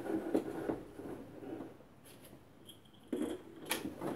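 Handling noise as a plastic loop handle is fitted onto an aluminium tool shaft: a few short clicks and knocks, with a quieter spell in the middle and a cluster of knocks about three seconds in.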